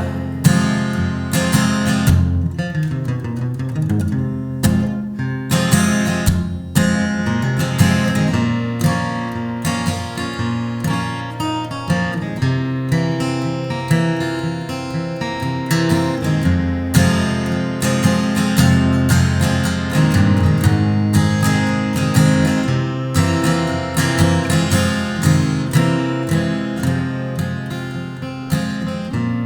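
Strummed acoustic guitar playing an instrumental passage of a song, with no singing.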